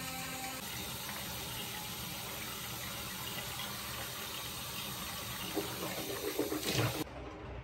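Bathroom sink tap running steadily, with an electric toothbrush humming in the first half-second before it is switched off. Near the end come a few louder splashes as she rinses at the sink, then the sound cuts off abruptly.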